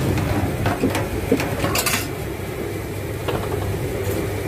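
Metal spatula scraping and tapping on a flat metal griddle while dosas are spread and cooked, a few sharp clicks and a short scrape in the first two seconds, over a steady low hum.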